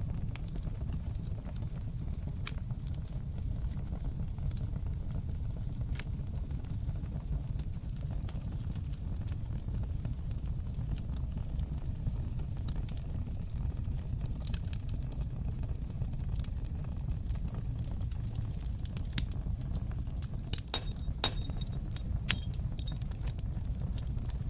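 Fire burning in a fireplace: a steady low rumble with scattered sharp crackles and pops. The crackles come thicker about twenty seconds in, with one louder pop shortly after.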